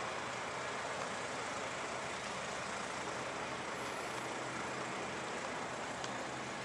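Steady hum and hiss of idling truck machinery, with a faint low drone underneath.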